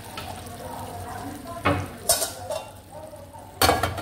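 Tomato sauce sizzling in a frying pan, with sharp metallic clatters partway through. The loudest is a cluster near the end as a perforated metal splatter-guard cover is set onto the pan.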